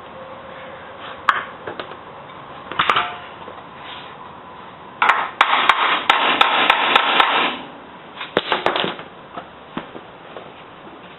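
Hammer tapping on a 2000 Honda Accord's steel frame rail while the dent is worked out, the high spots tapped down. A few single taps, then a quick run of about eight taps with a rasping noise behind them about halfway through, then a few more taps.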